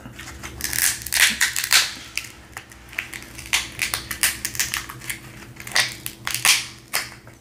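King crab leg shell being pried and broken apart by hand, giving a string of irregular cracks and crunches.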